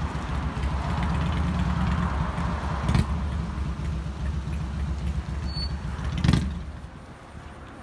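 Car engine running with a steady low rumble, heard from inside the car. There is a knock about three seconds in and a louder one about six seconds in, and the rumble dies away right after the second.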